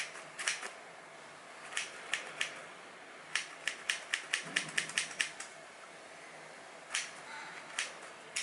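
Scissors snipping through a paper towel in a series of crisp snips: a few scattered cuts, then a quick run of about ten snips in two seconds around the middle, then a few more near the end.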